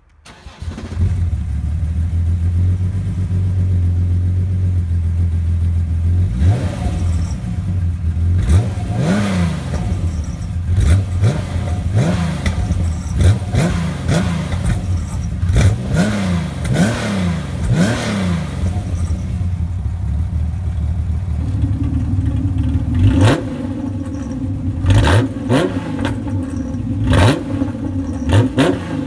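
Exhaust of a TVR T350T's straight-six engine, fitted with a Guerrilla Bypass cut-out valve, settling to a steady idle, then blipped again and again, each rev rising and falling quickly. The engine note changes about two-thirds of the way through, and further blips follow.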